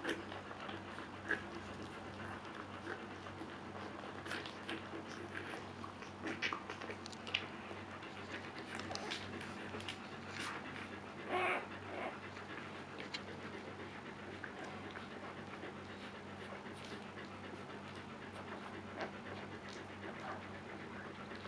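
Newborn husky puppies nursing, making scattered faint squeaks and clicks, with one short, louder squeal about eleven seconds in, over a steady low hum.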